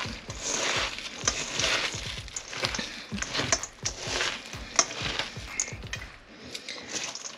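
A hand mixing and squeezing a moist cracker stuffing in a bowl: an irregular run of squishing, crumbling strokes with a few sharp clicks against the bowl.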